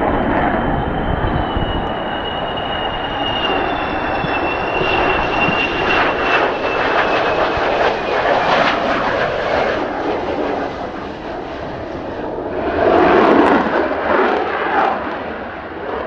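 Jet roar of an F-4EJ Kai Phantom's twin J79 turbojets, with a thin high whine over it that slides down in pitch as the jet passes low. About thirteen seconds in it grows louder as power comes up for the touch-and-go climb-out.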